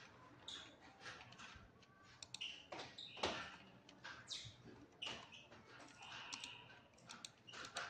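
Faint, scattered computer mouse clicks with brief rustling sounds between them.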